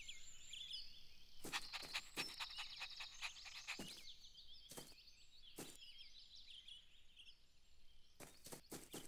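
Faint garden ambience of small birds chirping, many short high chirps, with scattered light taps in between.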